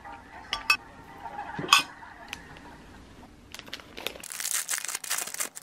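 A metal spoon clinking against a ceramic bowl a few times, the loudest strike a little under two seconds in. From about four seconds in, a clear plastic bag crinkling as a scone is slid out of it.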